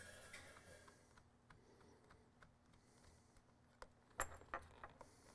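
Faint clicks and light metallic ticks of a Phillips screwdriver tightening a hose clamp's screw, with a few sharper clicks about four seconds in. A faint hum fades away in the first second.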